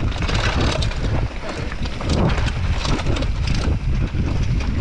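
Mountain bike running down a rough dirt trail, with wind buffeting the microphone and the bike clattering and rattling over the bumps many times a second.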